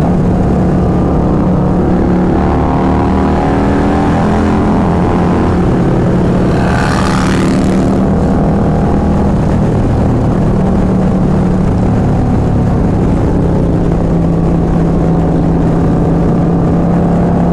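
Stage 2 Harley-Davidson V-twin motorcycle running steadily at highway speed through a 2-into-1 exhaust, with wind rush. A brief louder rush of noise comes about seven seconds in.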